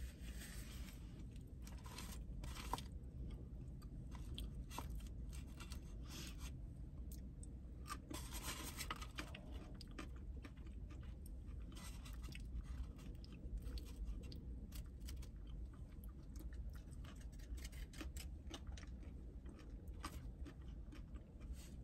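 A person chewing food close to the microphone: many soft wet mouth clicks and small crunches, over a steady low hum.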